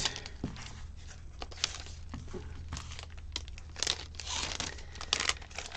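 Clear plastic sleeve and paper sticker sheets crinkling and rustling as the sheets are worked back into the sleeve by hand, in irregular crackles that come thicker about four seconds in and again just after five.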